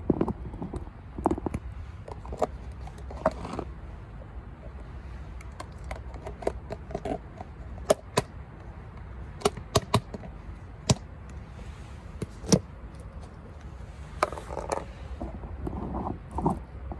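Scattered sharp clicks and knocks, with short rustles, of a tin of canned tuna cat food being handled and its contents set out on a plastic lid on asphalt, over a low steady hum.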